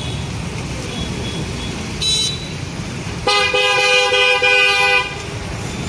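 Car horn sounding: a brief toot about two seconds in, then a steady blast of nearly two seconds with two close notes sounding together, over a steady low rumble.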